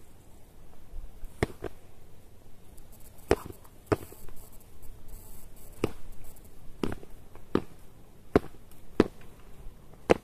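Land tortoise shells knocking together in a butting duel: sharp clacks, about ten in an uneven series, roughly one a second.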